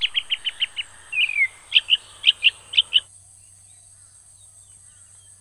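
Birds calling at dawn: a quick run of short high notes, a falling slurred note, then several sharp notes in pairs, cut off abruptly about three seconds in.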